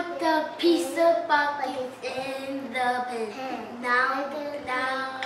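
A young child singing in a high voice, a tune of held notes that slide up and down in pitch.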